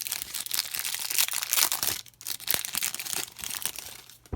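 Wrapper of a pack of football trading cards being crinkled and torn open, a dense crackling that breaks off briefly about two seconds in, then fades out and ends on one sharp tap.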